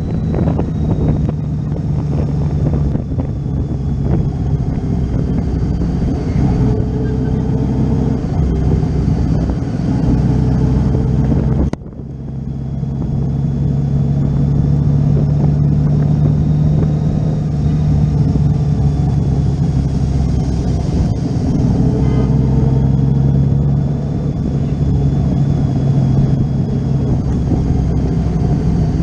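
Honda Valkyrie motorcycle's flat-six engine running steadily while riding in city traffic, a steady low engine hum over road and wind noise. The sound briefly drops out about twelve seconds in.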